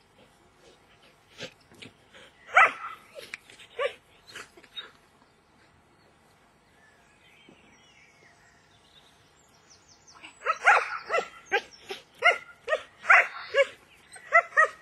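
A dog barking in short, high yips: a few about three seconds in, then a quick run of them, about two a second, over the last four seconds.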